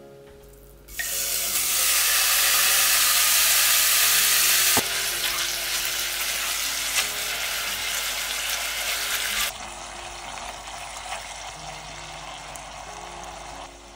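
Seasoned thinly sliced beef brisket sizzling as it is stir-fried with chopsticks in a cast-iron pot. The sizzle starts suddenly about a second in, is loudest for the next few seconds, then drops in level twice. Soft background music plays underneath.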